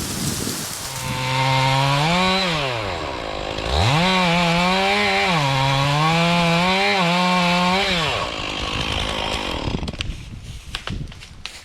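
Stihl two-stroke chainsaw revving up, dropping back and revving again, its pitch dipping and recovering for several seconds before it falls away. A run of light crackles and snaps follows near the end.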